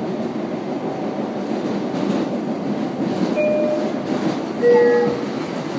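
Steady rumble and rattle of a moving passenger train, heard from inside the car. Two short high tones break through, the louder one about three-quarters of the way in.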